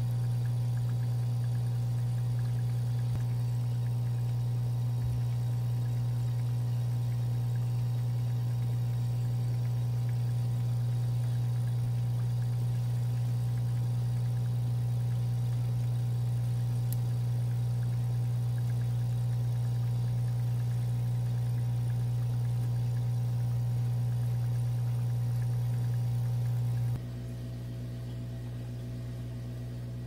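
Steady low electric hum of a small aquarium filter's motor, with no speech over it. It drops suddenly to a quieter level near the end.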